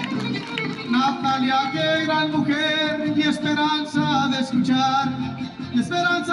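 Trío huasteco playing a huapango on violin, jarana and huapanguera, with male voices singing from about a second in.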